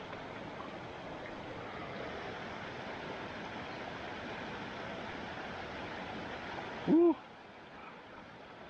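Mountain stream rushing steadily over rocks and a small cascade. About seven seconds in, a brief loud pitched sound rises and falls in pitch, and right after it the rushing turns quieter and duller.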